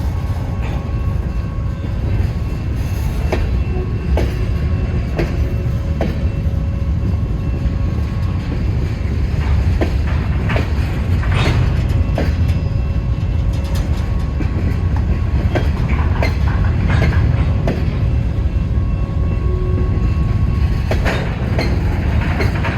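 Freight cars rolling past in a steady low rumble, with irregular sharp clicks of steel wheels over rail joints and a thin wheel squeal that comes and goes.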